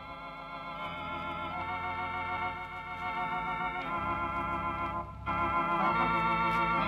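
Background music of held chords that change every second or so over steady bass notes, growing louder, with a brief dip about five seconds in.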